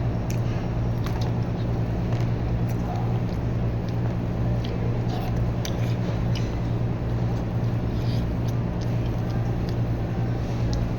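Close-up chewing and scattered small mouth clicks from someone eating eggs, over a steady low hum.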